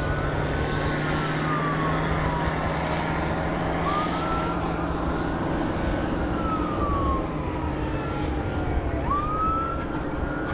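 Fire truck sirens on wail, rising and falling about every four to five seconds, at times overlapping, with a steady low hum under them that stops about seven seconds in.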